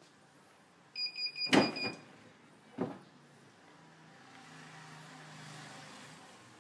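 Clamshell heat press: its timer beeps rapidly for just under a second, signalling that the pressing time is up, while the press is opened with a loud metal clunk; a smaller knock follows, then faint rustling as the printed fabric is handled.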